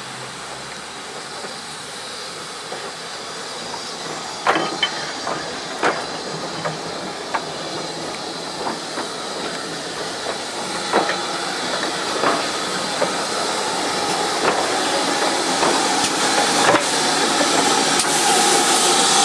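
Slow-moving train passing close by: wheels clicking irregularly over rail joints as a GWR autocoach rolls past, from about four seconds in. Under the clicks runs a steady steam hiss, growing louder near the end as the steam tank engine pushing the coach comes level.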